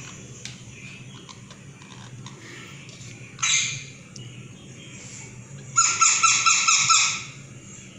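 Young rose-ringed (ring-necked) parakeet calling: one short harsh squawk about three and a half seconds in, then a quick run of repeated squawks lasting about a second, over a steady low hum.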